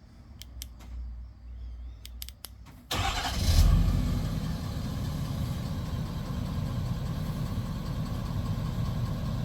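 A few light clicks, then about three seconds in a pickup truck's engine starts, flares briefly and settles into a steady idle.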